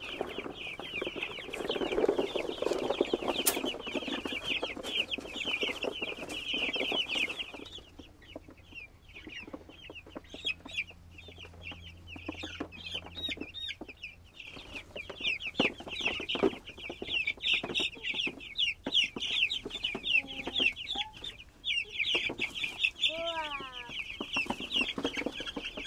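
A flock of young meat chickens peeping constantly and shrilly, thinning out for a few seconds in the middle. A rustling noise runs under the peeping for the first several seconds, and a couple of lower, falling squawks come near the end.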